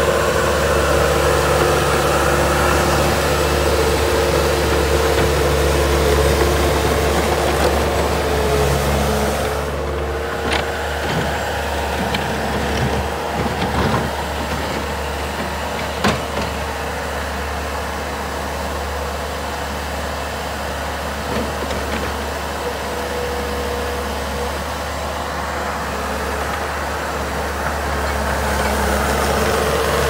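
Bobcat T300 compact track loader's diesel engine running steadily as the machine drives about, with a steady whine over the engine hum and a few sharp clanks midway.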